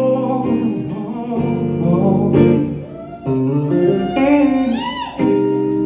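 Electric guitar played live in an instrumental break: picked notes and chords, with a string bend about five seconds in where the note rises in pitch and falls back.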